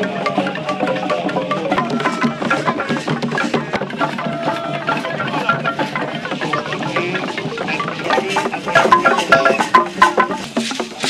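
Traditional dance music on a large wooden xylophone, its keys struck with mallets, with drums: a quick, dense run of short wooden notes that grows louder about eight seconds in.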